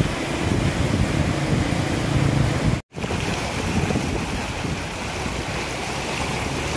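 Swollen, muddy river in flood rushing steadily past, with wind buffeting the microphone, strongest in the first few seconds. A brief drop-out about three seconds in breaks the sound.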